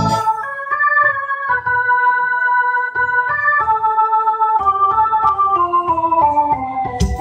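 Instrumental break in live band music: an electronic keyboard with an organ sound plays a melody of held notes over bass notes, the line stepping down toward the end.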